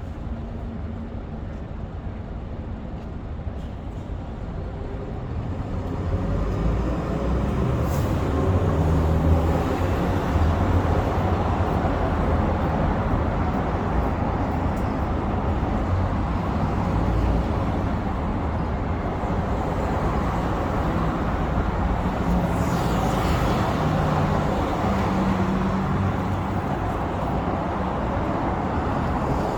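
City road traffic: cars and buses going by with their engines running and tyres on the road, growing louder about five seconds in and then holding steady.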